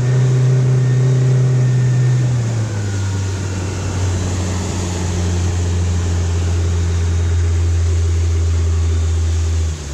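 Motorboat engine running steadily under way, a deep hum whose pitch drops about two and a half seconds in, with an abrupt change in the hum near the end.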